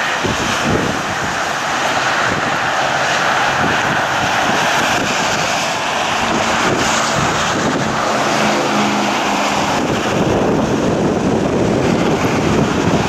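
Steady loud storm wind mixed with highway traffic noise, with an engine hum showing for a few seconds in the middle.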